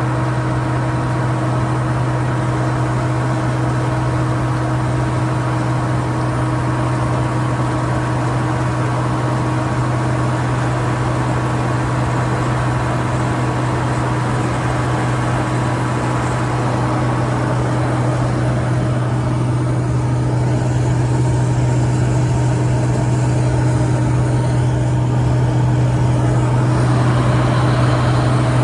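Case IH 2388 combine harvester running steadily, a constant low engine drone with a steady hum over it, growing slightly louder over the last several seconds.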